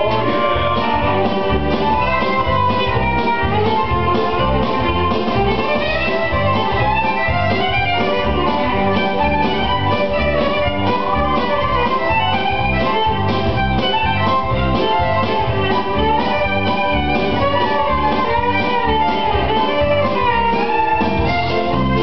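Live violin playing a melody with sliding notes over an accompaniment that has a steady bass pulse.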